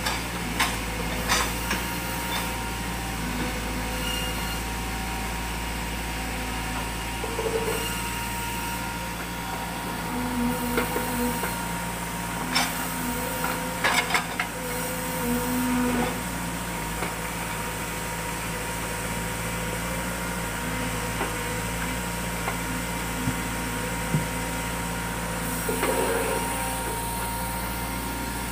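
Sawmill machinery running with a steady drone and held tones, with scattered short knocks and clatters of wood and metal.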